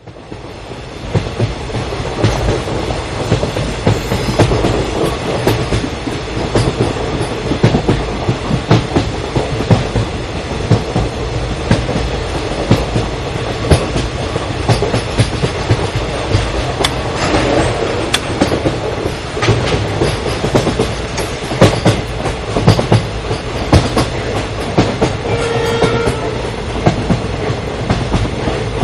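Amaravati Express passenger train running at speed: steady rumble of its wheels on the rails, with a dense run of sharp clickety-clack knocks as the wheels pass rail joints. A short steady tone sounds briefly near the end.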